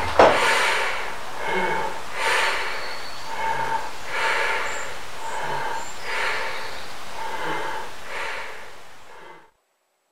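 A sudden hit, then heavy breathing through a gas mask: slow, rasping breaths in and out at about one a second, fading away about nine seconds in.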